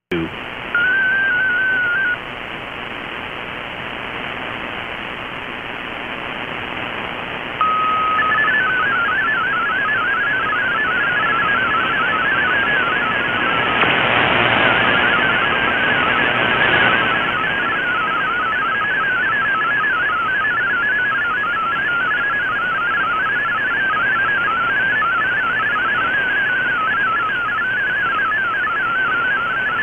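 Shortwave receiver audio: a steady hiss of static, a short tone sequence about a second in (the RSID burst that identifies the mode), then from about eight seconds the warbling, fast-changing tones of an MFSK32 digital text transmission. The static swells for a few seconds in the middle as the signal fades.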